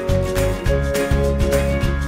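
Background music with a steady beat and plucked guitar-like notes.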